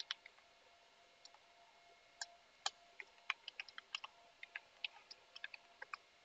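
Computer keyboard keys clicking faintly as a password is typed: a few keystrokes at the start, then a quick, irregular run of keystrokes from about two seconds in until shortly before the end.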